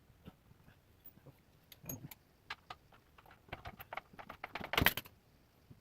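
A run of light clicks and jangling clinks from small hard objects being handled, sparse at first and thickening into a dense clatter about five seconds in.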